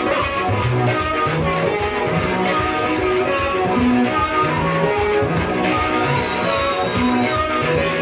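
Upbeat gospel dance music with a steady beat and many layered held notes.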